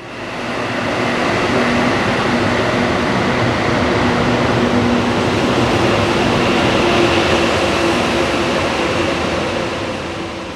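Train running past a station platform under cover: a steady rushing rail and running noise with a few faint held tones, fading in at the start and dropping away near the end.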